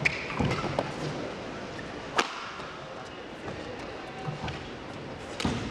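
Badminton rackets striking a shuttlecock during a fast rally: a few sharp cracks spaced irregularly, the loudest about two seconds in and another near the end, over the steady hum of the hall.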